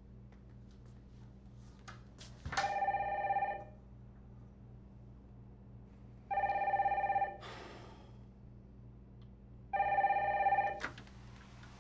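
Office telephone ringing with an electronic ring: three rings of about a second each, roughly three and a half seconds apart, over a steady low hum.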